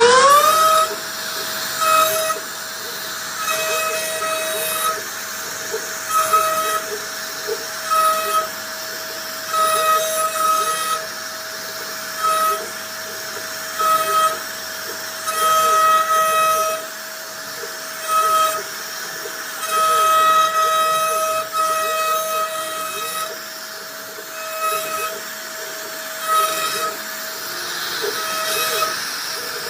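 CNC router spindle whining: it spins up at the start, then holds a steady high pitch. Louder rasping passes come and go every second or two as the bit cuts into wood.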